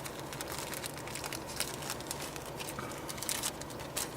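Handling noise: irregular light clicks and crinkling over a steady low hum.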